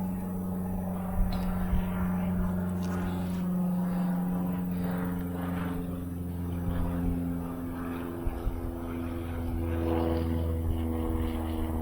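An engine drones steadily, its pitch shifting slightly in the second half, with a few light clicks over it.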